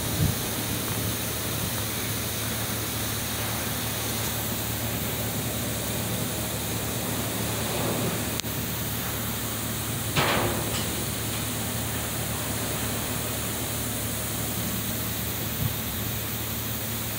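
Steady industrial plant noise: an even hiss with a constant low hum, like the ventilation fans and ductwork of a factory, with a few brief bumps, the clearest about ten seconds in.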